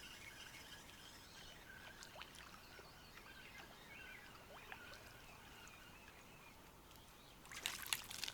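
Quiet lakeside ambience with faint, scattered bird calls, then a brief burst of water splashing near the end, fitting a small fish being pulled to the surface and landed.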